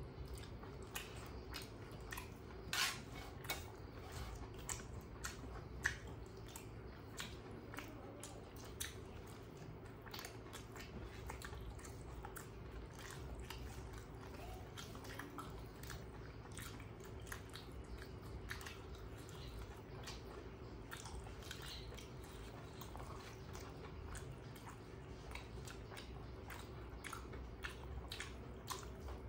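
Close-miked eating by hand: chewing, with the wet squish of fingers mixing and scooping rice and curry, heard as many soft clicks. Two sharper clicks come about 3 and 6 seconds in, over a faint steady hum.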